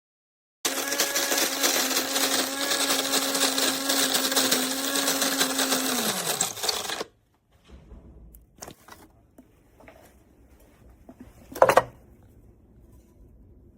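Cuisinart DBM-8P1 electric burr coffee grinder running for about six seconds, a steady motor hum under a dense crackle. Its pitch drops as it winds down and stops. A few light clicks and one sharper knock follow.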